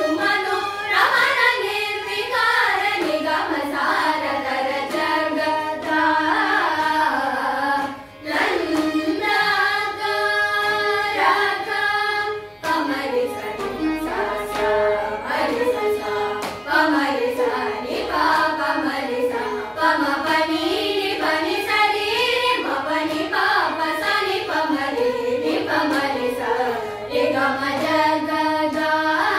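Group of young voices singing a Carnatic kriti in unison in raga Naata, Adi tala, with heavily ornamented, sliding notes, accompanied by two violins. The singing breaks off briefly about eight seconds in.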